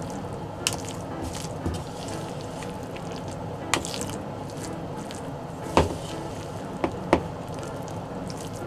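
Metal spoon stirring diced chicken breast and potato through potato starch in a plastic bowl, with about six sharp clicks where the spoon knocks against the bowl.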